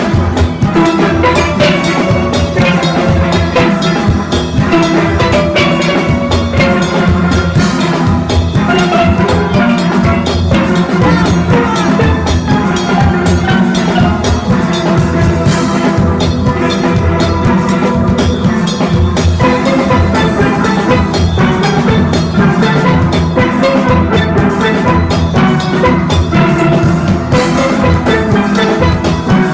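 Steel orchestra playing a soca arrangement: many steelpans ringing out melody and chords over a steady drum-kit and percussion beat.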